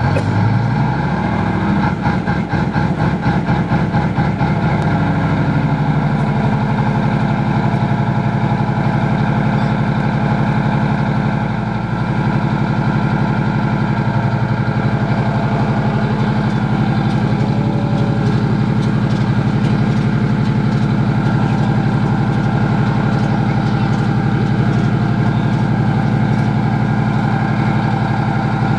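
Type 90 tank's V10 turbodiesel engine, its pitch rising over the first couple of seconds and then settling to a steady idle.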